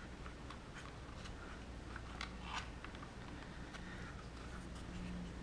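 Scattered faint clicks and light scraping of hard plastic as a snap-on cover is worked back into place over an RC truck's ESC and receiver wiring.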